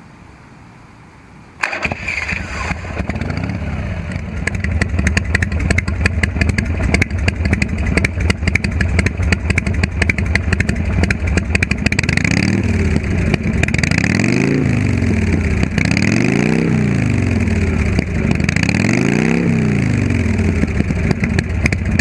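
Harley-Davidson FXRS-SP Lowrider's V-twin engine, fitted with Screamin' Eagle heads and Cycle Shack exhaust pipes, starting up about two seconds in and settling into an idle. In the second half it is revved four times, the pitch rising and falling each time.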